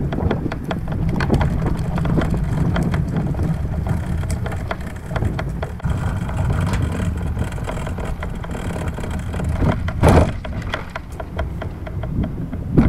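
A plastic fishing kayak being pulled along over pavement and a gangway onto a dock, heard from a camera mounted on the kayak: a steady low rumble with constant rattling of the hull and gear, and a louder clunk about ten seconds in.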